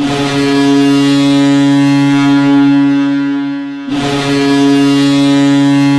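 Boston Bruins NHL goal horn sounding, the signal of a Bruins goal: a deep, steady horn blast of about four seconds, then a second blast starting right after a short break.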